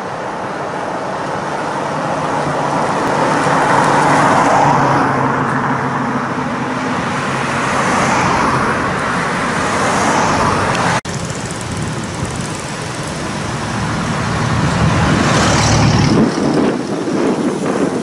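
Road traffic passing close by: cars go by one after another, each swelling and fading with tyre noise. The last pass, about three-quarters through, carries a deep engine hum, and the sound drops out for an instant just past the middle.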